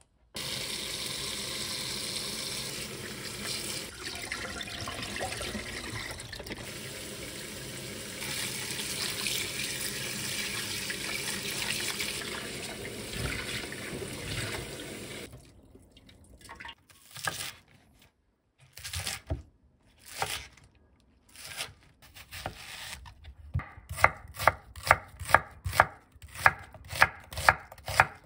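Tap water running steadily into a sink over young radish greens in a mesh colander for about fifteen seconds, then a few scattered knocks. Near the end, a chef's knife slices an onion on a wooden cutting board in a steady run of sharp strokes, about two to three a second.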